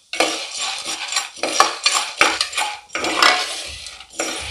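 A metal spoon stirring and scraping dried corn kernels in hot oil around the bottom of a pressure cooker, with repeated strokes and sharp clicks as the spoon and kernels hit the pot. The kernels are being stirred on medium flame until they start to pop.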